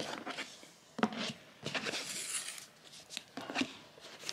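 A ribbon being pulled loose and untied from a cardboard gift box: several short rustles and scrapes of ribbon sliding over card, about a second in, around two seconds in, and again near the end.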